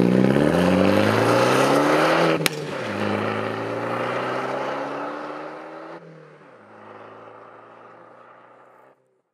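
Alfa Romeo MiTo accelerating through the gears. The engine note climbs, drops at upshifts about two and a half and six seconds in, climbs again each time, and fades as the car pulls away.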